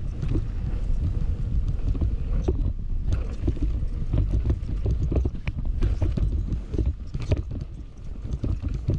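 Commencal Meta Power SX e-bike descending a dirt trail: a steady rumble of wind buffeting the microphone and tyres rolling on the dirt, with frequent short rattles and knocks as the bike goes over bumps.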